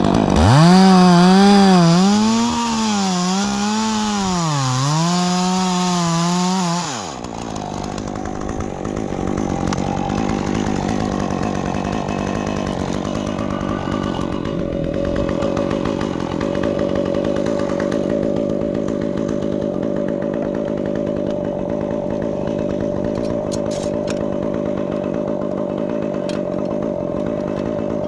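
Stihl two-stroke chainsaw at full throttle cutting pine wood, its pitch rising and falling under load. About seven seconds in it drops suddenly to a quieter, steady engine sound with one constant tone.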